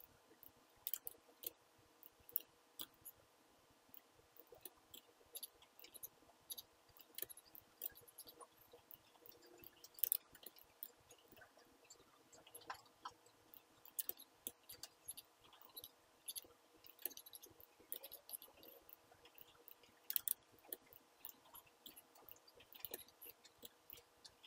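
Computer mouse clicking rapidly and irregularly, several clicks a second, over a faint steady hum.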